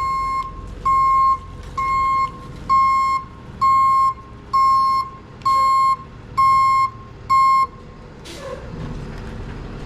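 Tow truck's reversing alarm beeping in an even rhythm, about one beep a second, nine beeps in all, then stopping near the end, over a low rumble.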